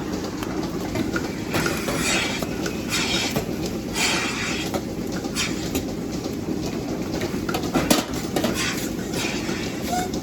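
Steady machinery rumble with irregular metallic clinks and clatter over it, a few sharper knocks about four and eight seconds in.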